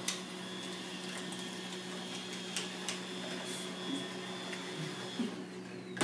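Roomba robot vacuum running: a steady motor hum with a high whine, and a few sharp clicks. The whine stops about five seconds in.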